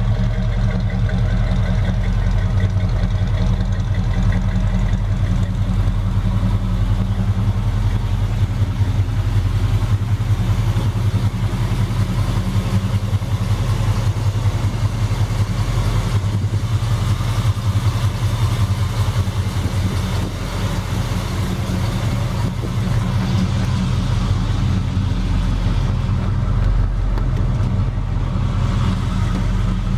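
Chevrolet 454 big-block V8 idling steadily.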